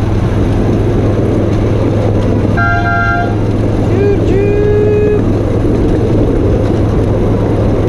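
Miniature train's horn giving a short, chord-like toot about two and a half seconds in, followed by a lower toot that slides up and holds for about a second. Underneath is the steady low rumble of the ride along the track.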